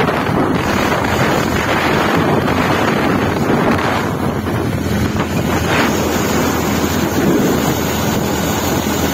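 Wind rushing over a phone's microphone on a moving motorcycle, a loud steady rumble, with the motorcycle's engine running underneath.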